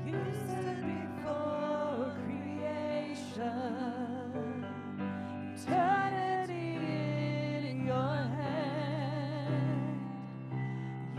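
Women's voices singing a worship song with vibrato over sustained electric keyboard chords. The singing comes in right at the start, over keyboard that was already playing.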